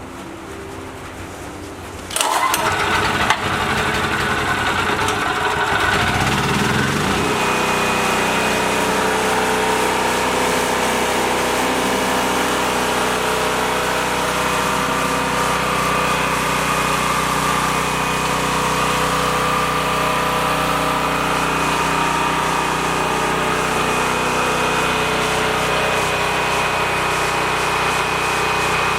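Portable generator's small engine starting about two seconds in, its speed rising and settling over the next few seconds, then running steadily: the generator now starts after the repair.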